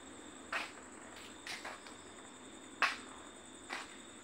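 Faint steady high-pitched chirring of night insects, with a few short clicks and rustles scattered through, the sharpest about two thirds of the way in.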